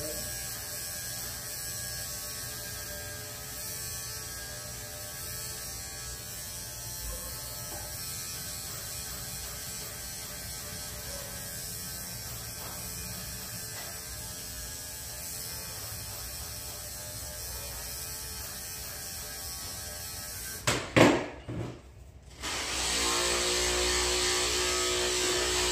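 Cordless dog clippers running steadily while trimming a schnauzer's head. About 21 seconds in comes a loud knock and a brief drop-out, then a louder steady hum takes over.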